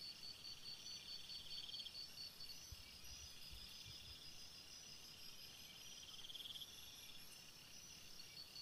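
Faint night insects calling: a steady pulsed chirp that drops out about two and a half seconds in, and a buzzing trill that swells twice.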